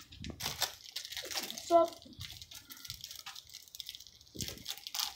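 Plastic candy wrappers crinkling and rustling and graham crackers crackling as they are handled, with a brief pitched sound a little under two seconds in, the loudest moment.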